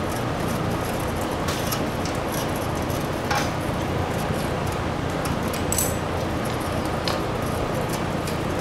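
Hand tools clicking and clinking against metal engine fittings a few times, over a steady background hum.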